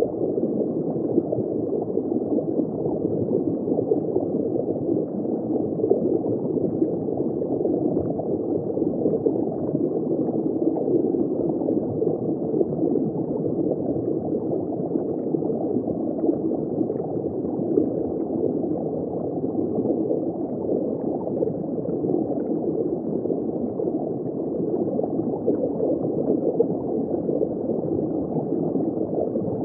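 Steady, muffled underwater water noise that stays even throughout, with no distinct events.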